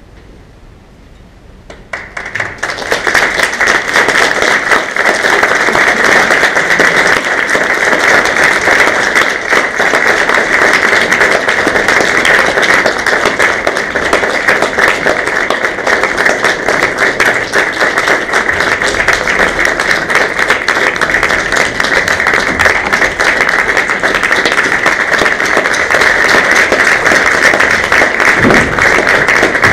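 Theatre audience applauding, starting suddenly about two seconds in after a short hush and keeping up a loud, even clatter of many hands.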